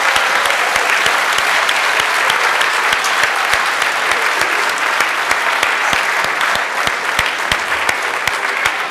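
A large audience applauding: dense, loud clapping.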